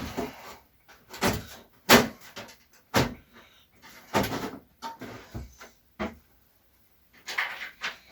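Knocks and clacks of parts being handled and fitted into a desktop computer case, about eight separate hits with short pauses between, the loudest about two seconds in.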